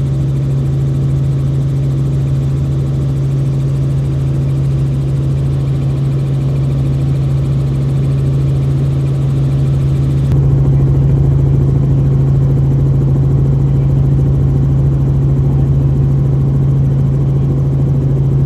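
Helicopter in flight heard from inside the cabin: a steady, loud drone from the rotors and engine with a strong low hum. About ten seconds in it changes abruptly to a duller, slightly louder drone.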